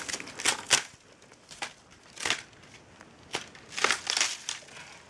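Dry, irregular crunching and scraping as a climber grips and pushes against a eucalyptus trunk, with dry bark and debris crackling. There are about half a dozen separate crunches with short pauses between them.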